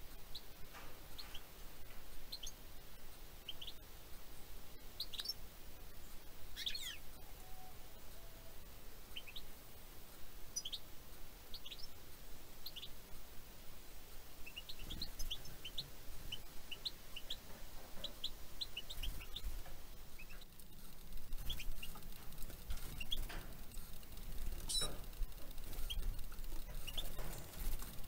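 Small songbirds calling with many short, high chirps and tweets scattered throughout, some in quick little runs. A faint low rumble sits under the second half.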